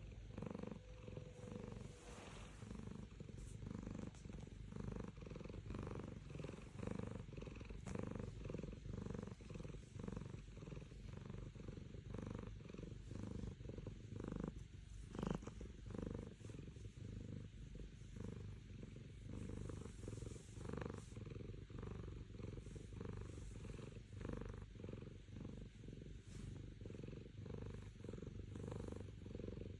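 Domestic cat purring close up, a steady low rumble that swells and fades in an even rhythm with its breathing. A single brief knock about halfway through.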